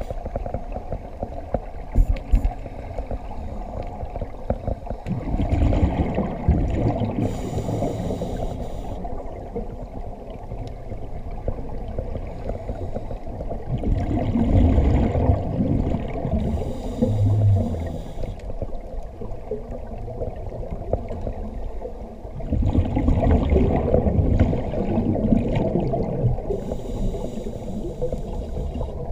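Scuba diver breathing through a regulator, heard underwater: three breaths, each a long gurgling rush of exhaled bubbles followed by a short hiss of the inhale, about every eight or nine seconds, over a steady low underwater rumble.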